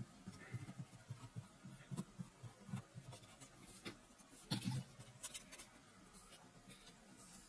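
A small screwdriver turning a small metal screw out of a plastic toy-train part: faint scraping and light clicks of metal on plastic, with one louder clack about four and a half seconds in as the screw and parts are handled.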